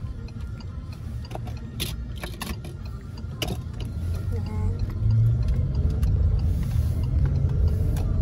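Car cabin noise: low engine and road rumble, growing louder about five seconds in as the car gathers speed. A few sharp clicks come around two to three seconds in.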